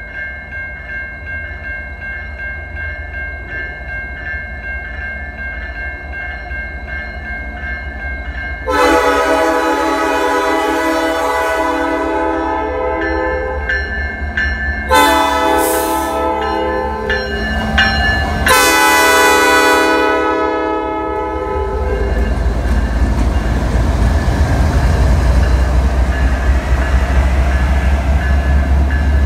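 Norfolk Southern SD70M-2's Nathan P5 air horn, a horn described as sick, blows three blasts for the grade crossing over a ringing crossing bell. The first blast is the longest. Then the diesel locomotives pass close by with a loud, low engine rumble.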